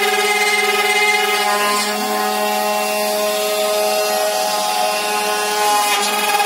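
CNC router running a cut in a wooden board: a steady motor whine made of several tones, shifting slightly in pitch a couple of times.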